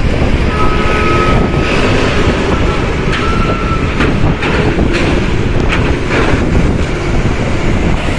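Heavy bus driving over a ferry's steel ramp and deck: a steady low rumble, with a run of clanks and rattles in the middle as it crosses.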